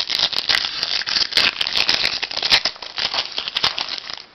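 Foil wrapper of a Topps Chrome football card pack crinkling and crackling as it is opened by hand, a dense run of small crackles that eases off near the end.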